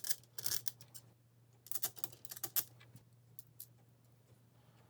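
Small metal screws and parts clicking and clinking as they are handled and fitted through metal plates, in a few short clusters of sharp clicks. A faint steady low hum runs underneath.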